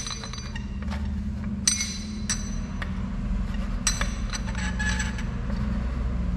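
Several sharp metallic clinks with a short ring, from the lever tumblers of an old steel safe's lock being moved by hand to line them up, over a steady low rumble.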